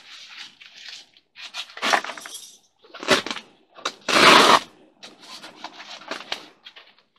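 Fabric wall of a pop-up ice fishing shelter rustling and crinkling as it is handled, in irregular bursts, the loudest about four seconds in.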